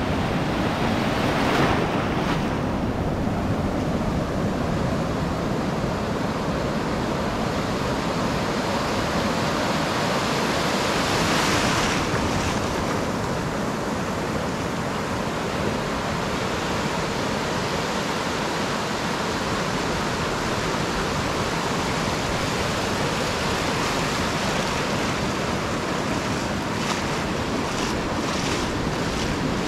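Shallow ocean surf washing in over sand at the water's edge, with small waves breaking beyond: a steady rushing wash that swells louder about two seconds in and again around eleven seconds in.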